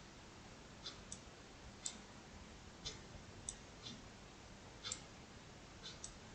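Faint, irregular computer mouse clicks, roughly one a second, as shapes are selected and dragged on screen.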